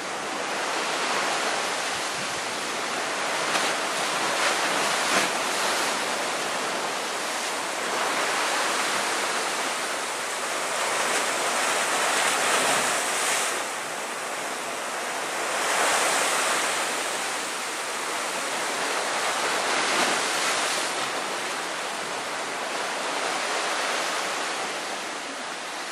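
Sea waves washing onto a shore: a steady rushing hiss that swells and eases several times as waves break.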